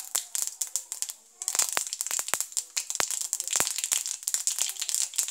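Black mustard seeds spluttering in hot oil in a kadai: a rapid, irregular crackle of sharp pops over a sizzle. The pops grow much denser after about a second and a half. This spluttering is the sign that the tempering is ready for the next ingredient.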